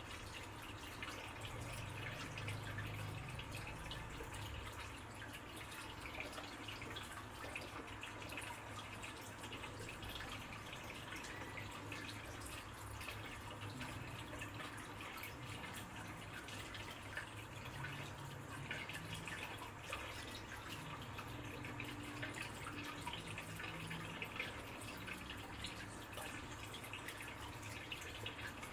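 Water trickling and dripping steadily, with many small splashes, over a low hum.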